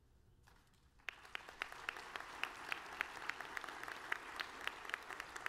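Audience applauding: after about a second of near quiet, many hands begin clapping and keep on steadily.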